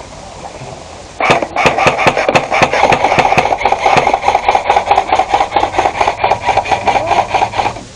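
Automatic airsoft gun firing a long sustained burst: a steady gearbox-motor whine with rapid clicks of the shots. It starts about a second in and cuts off near the end.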